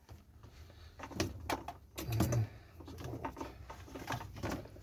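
Scattered knocks and clicks of objects being handled and set down on a workbench, with a short low sound about two seconds in.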